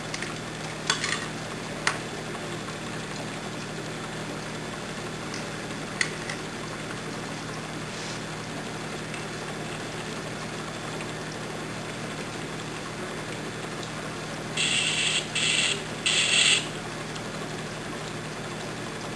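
Oxyhydrogen (HHO) torch flame hissing steadily as it heats a small metal part, with a few sharp ticks in the first six seconds. Near the end, three short, louder bursts of hissing.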